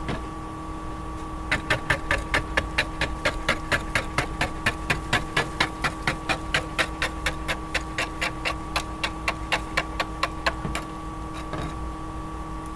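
Hand scraper worked over a stucco wall in quick, even strokes, a run of sharp scrapes about four to five a second that starts a second or two in and stops near the end, as the surface is smoothed for a new garage door weather strip.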